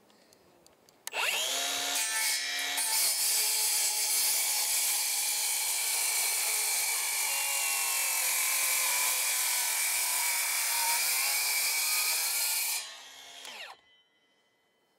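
Angle grinder spinning up about a second in and cutting through the top of a verandah post with a steady, loud cutting noise, then switched off near the end and winding down.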